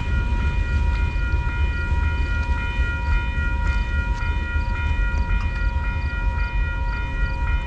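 A train rumbling past, with a steady low rumble throughout and steady high ringing tones above it, one of them pulsing quickly and evenly.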